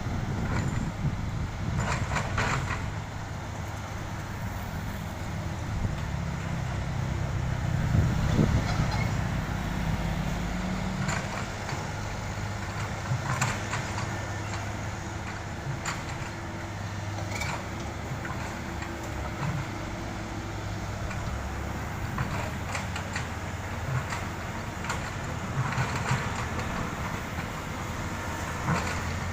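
Heavy diesel road-construction machinery running steadily, the engine swelling louder for a few seconds about a quarter of the way in, with scattered short knocks and clanks throughout.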